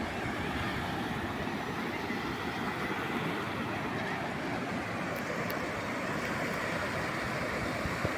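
Calm sea waves washing ashore in a steady, even wash of surf.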